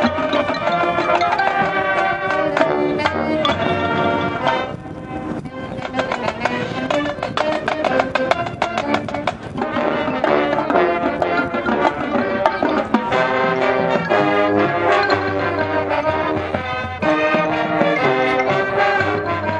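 High school marching band playing its field show: brass chords with drums and front-ensemble percussion, easing off briefly about five seconds in and then coming back.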